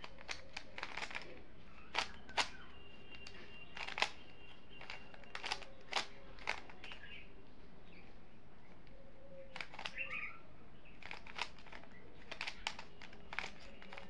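A plastic 3x3 Rubik's cube being turned by hand during a solve: faint, irregular clicks and clacks of its layers rotating, in quick clusters with short pauses between.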